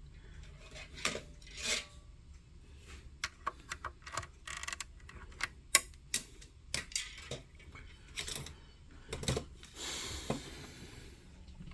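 Irregular metallic clicks, taps and scrapes of a hand tool on the amplifier chassis as a filter-can socket, its rivets drilled out, is pried loose, with a longer scrape about ten seconds in.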